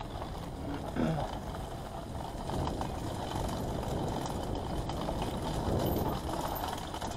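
Mountain bike riding fast down a leaf-covered dirt trail: tyres rolling over dirt and dry leaves, with the bike rattling over bumps and a louder knock about a second in.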